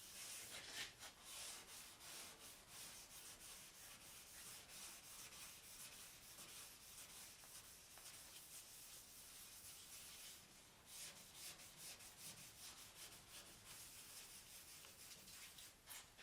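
Faint repeated rubbing strokes of sandpaper on a sanding block, worked by hand over the primered steel body of a Porsche 911, with a short pause partway through.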